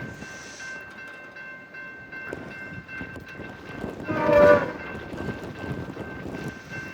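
Horn of an Amtrak P42 locomotive sounding a short, weak blast about four seconds in, over the rumble of the arriving train. The horn is weak and off-sounding, a foul horn.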